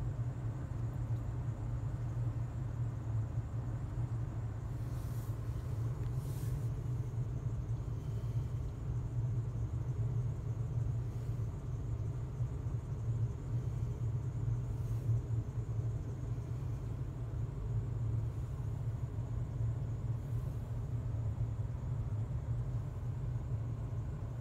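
Ford 6.8 L Triton V10 engine of an E-450 motorhome idling steadily, heard from inside the cab, with a constant low hum. The engine is still cold.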